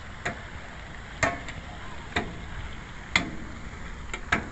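Outdoor stair-stepper exercise machine clacking with each step as the pedals are pushed down, about one sharp knock a second with fainter clicks between.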